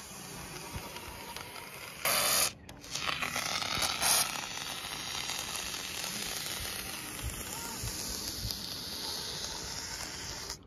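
Polyurethane construction foam hissing out of a foam gun's nozzle as a bead is laid, with louder spurts about two seconds in and again around three to four seconds in.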